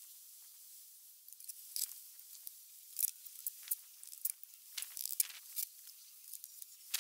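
Trowel work in sand-and-cement mortar while laying concrete blocks: scattered short scrapes and gritty crunches, a dozen or so, growing busier after the first second or so.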